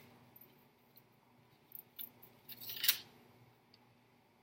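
A plastic CD case being handled and adjusted: a couple of light clicks just before two seconds in, then a short scraping rustle near three seconds.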